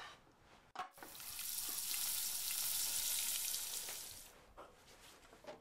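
Grilled cheese sandwich sizzling in a frying pan, a steady hiss that comes in suddenly about a second in and fades out after about four seconds, with a few faint clicks around it.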